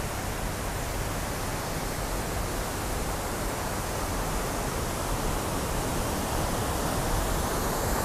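Waterfall rushing: a steady, even sound of falling water with no breaks.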